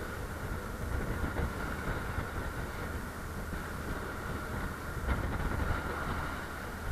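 Steady drone of a motorized outrigger boat's engine under way, mixed with wind rushing over the microphone and water washing along the hull.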